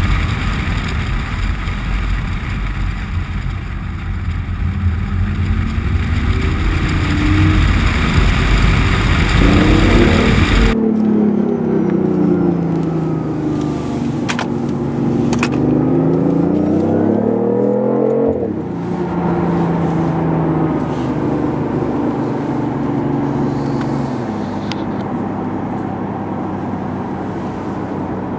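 BMW i8's turbocharged petrol engine and car running at speed. For about the first ten seconds a loud, dense rumble and rush covers everything. Then it cuts abruptly to the engine note climbing and dropping as it revs, easing into a steadier drone near the end.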